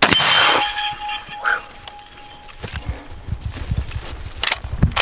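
A single shot from a Swiss K31 straight-pull rifle (7.5×55mm Swiss), a sharp crack that fades over about half a second, with a ringing tone trailing off over about two and a half seconds. A couple of sharp clicks come near the end.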